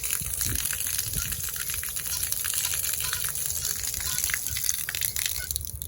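Outdoor hose spigot gushing water in a steady rush that cuts off suddenly near the end. The flow came only after a delay, which the owner suspects is debris inside the faucet stem.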